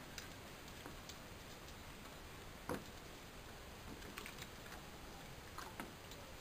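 Faint scattered ticks and knocks from a dog playing with a hard plastic boomerball in a water-filled plastic shell, with one sharper knock a little under three seconds in.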